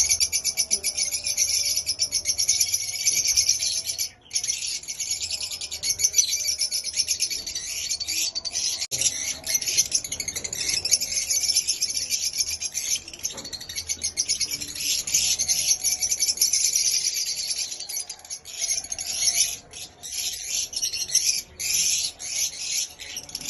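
Small pet birds chirping and chattering in a rapid, high-pitched, nearly unbroken stream, with a few short pauses.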